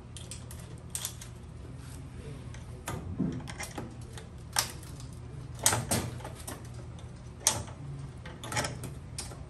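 Irregular metallic clicks and taps of a screwdriver and screw against a gas stove's sheet-metal back panel as the screw is worked at a hole that does not line up. About eight sharp clicks, the loudest near the middle, over a steady low hum.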